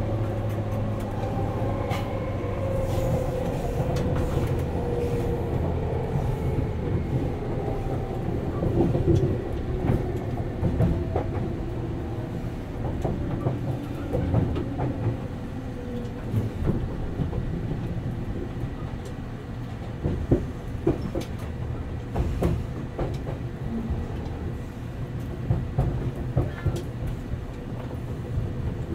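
Inside a 189-series express electric motor car, the MT54 traction motors and gearing give a whine that falls in pitch as the train slows. Under it runs a steady rumble from the wheels, with scattered clicks as the wheels pass over rail joints.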